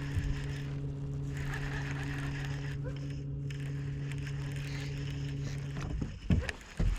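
A small motor hums steadily and cuts off about six seconds in, followed by two loud thumps.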